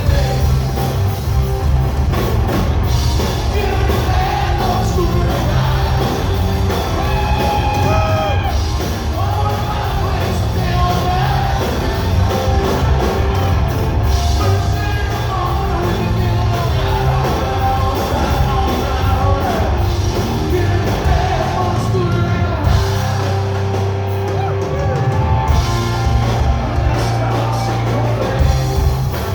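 Live rock band playing loudly, with singing over electric guitar, bass and drums.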